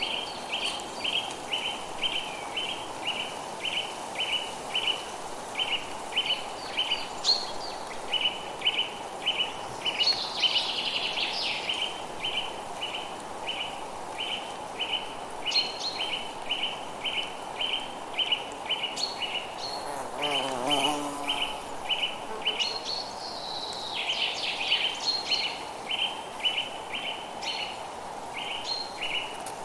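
Forest ambience: a steady, even chirping about three times a second runs throughout. Higher bird calls come in over it now and then, with a lower, falling call about two-thirds of the way through, over a constant background hiss.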